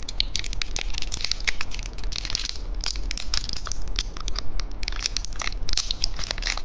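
Thin plastic candy wrapper crinkling and crackling in the hands, a dense run of small irregular crackles as it is handled and opened.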